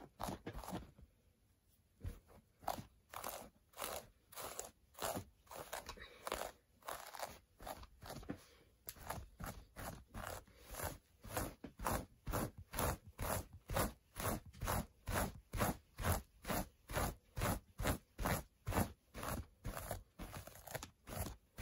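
A cat brush raked repeatedly through a doll's tangled hair, scratchy brushing strokes at about two a second, with a short pause about a second in.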